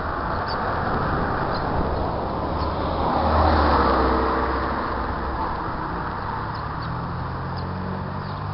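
A car passing on the street against steady outdoor traffic noise, growing louder to a peak about three to four seconds in and then fading.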